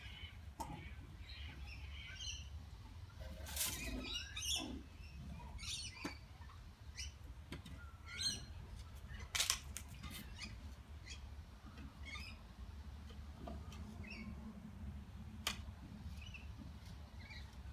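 Birds chirping in short, scattered calls, with a few sharp knocks, the loudest about nine and a half seconds in.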